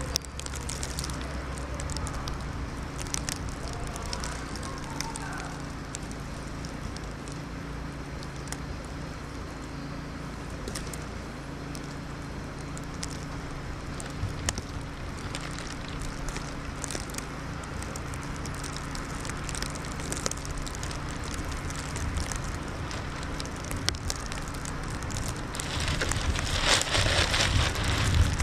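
Plastic trash bag worn as a body wrap, crinkling with faint scattered crackles and ticks over a steady outdoor rush of wind. The rush grows louder for the last few seconds.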